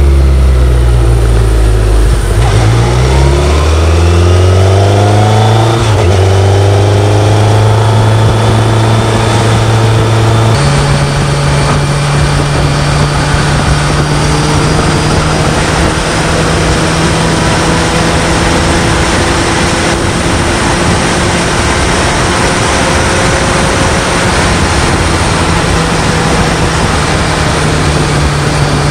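BMW K1100LT's inline four-cylinder engine running. It is revved in the first few seconds, its pitch swinging up and down, then settles to a steady speed that steps up once about ten seconds in.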